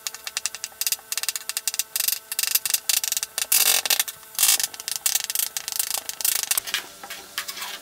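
Kitchen knife chopping chicken fillet into small pieces on a plastic cutting board: rapid, repeated blade strikes on the board, thinning out near the end.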